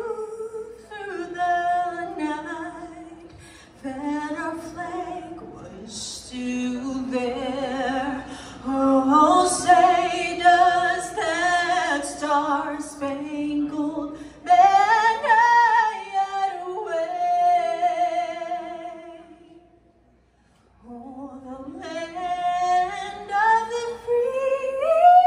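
A woman singing a national anthem solo and unaccompanied, a slow melody with long held notes, with a short break about twenty seconds in.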